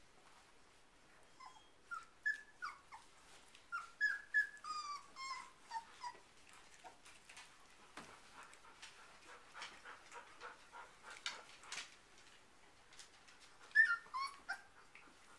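Four-week-old Airedale terrier puppies giving short, high whimpers and yips as they play. A run of calls comes in the first few seconds and another brief burst near the end, with faint scuffling between.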